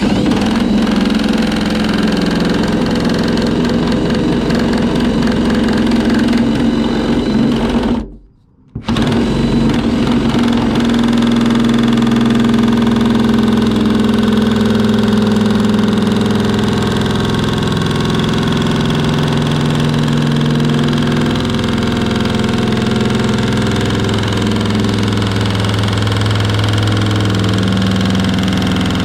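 Drill-driven nibbler cutting through the van's sheet-steel body panel, running steadily. It stops for under a second about eight seconds in, then starts cutting again.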